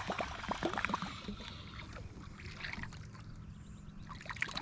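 Big topwater musky bait being reeled in across the surface, churning and splashing the water in quick, even pulses for about the first second and a half, then fading. A steady low hum runs underneath.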